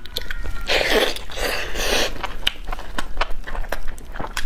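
Close-miked eating: a person biting into and chewing sauce-covered roast chicken, wet mouth sounds with many short clicks. The chewing is loudest for about a second and a half, starting about a second in.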